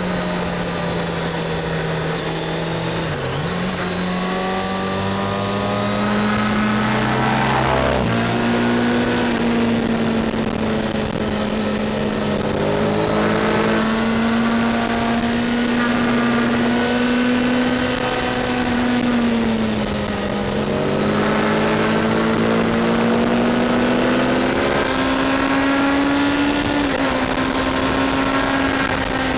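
Yamaha FZ6 Fazer 600's inline-four engine running hard at road speed, with wind rushing past. Its pitch falls and rises with the throttle, dipping about 3 seconds in and again around 20 seconds, with a sharp change about 8 seconds in.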